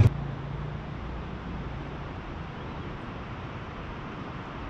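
A running motorcycle engine cuts off abruptly at the very start, leaving a steady, featureless hiss like wind.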